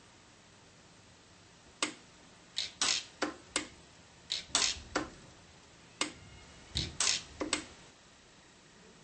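Pulse-arc micro welder firing on fine filament wire: a dozen or so sharp snaps at uneven intervals, some in quick pairs, starting about two seconds in.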